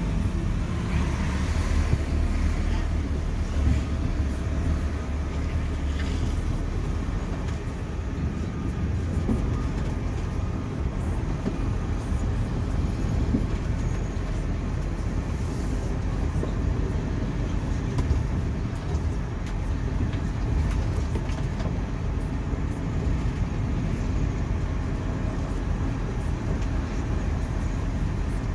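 Volvo lorry's diesel engine running as the truck drives slowly over site ground, heard from inside the cab as a steady low rumble.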